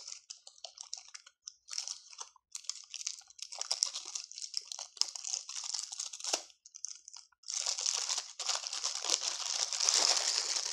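Plastic packaging crinkling and crackling as it is handled and unwrapped, in irregular bursts that become dense and continuous for the last three seconds.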